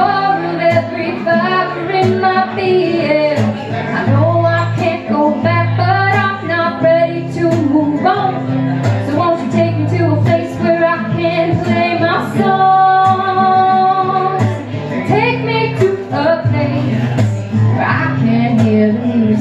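A woman singing a song live, accompanying herself on guitar. About two-thirds of the way through she holds one long note.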